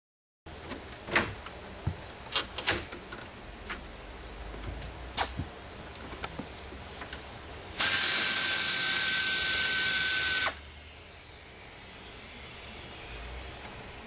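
Scattered light clicks and taps of tools and plastic trim under a steering column, then a power screwdriver runs steadily for about three seconds, removing the lower trim panel screws. It starts and stops abruptly.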